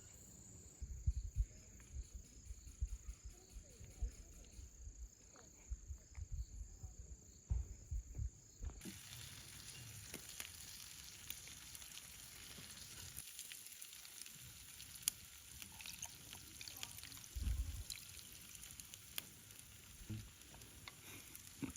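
Campfire of well-dried firewood crackling, with scattered sharp pops over a light hiss; the crackle gets brighter and busier about nine seconds in.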